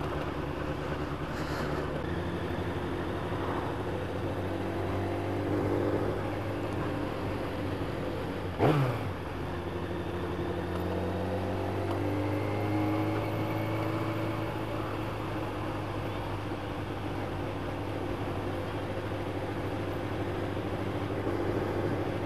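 Motorcycle engine running at road speed, heard from the bike itself over wind and road noise, its pitch rising and falling gently with the throttle. About nine seconds in there is a brief, louder whoosh that drops in pitch.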